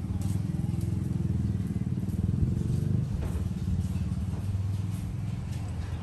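A small motor vehicle's engine running close by with a steady low drone that swells a little midway, then eases. Faint light clicks sound over it.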